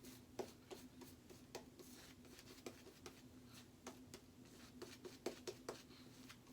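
Boar-bristle shaving brush working lather onto the face: faint, irregular scratchy clicks of the wet bristles, over a faint steady low hum.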